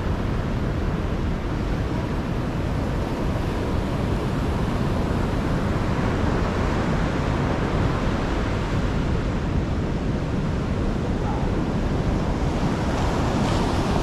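Sea surf washing onto a sandy beach as a steady, even noise, with wind buffeting the microphone.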